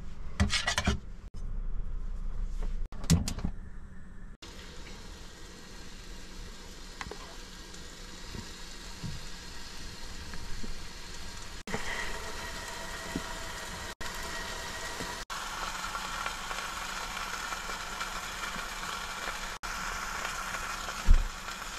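A burger patty frying in a pan, sizzling steadily. A few short knocks of the spatula and pan come first, and the sizzling starts suddenly about four seconds in.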